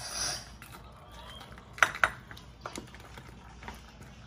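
Liquid poured briefly from a bowl into a stainless steel pot of tomatillos and dried chiles, then a wooden spoon stirring in the pot, with two sharp knocks against it about two seconds in.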